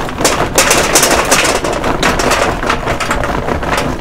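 Charcoal briquettes pouring out of a bag into a metal chimney starter, clattering and knocking against the sheet-metal sides and each other in a rapid, dense rattle.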